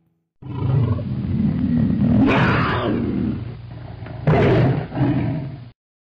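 Sound effect of a roaring animal: one loud, rough roar of about five seconds with two stronger surges, ending abruptly.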